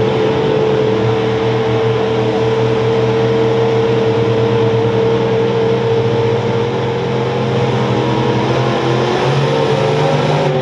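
Bigfoot monster truck's engine held at high, steady revs during a tyre-smoking burnout at the drag strip start line, its pitch shifting near the end.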